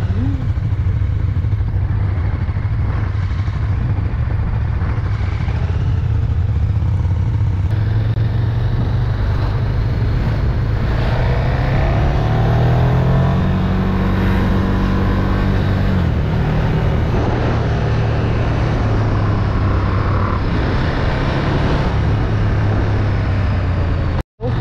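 KTM 1290 Super Duke R's V-twin engine running at riding speed. About halfway through, the revs rise for a few seconds as it accelerates, then drop back. The sound cuts out for a moment near the end.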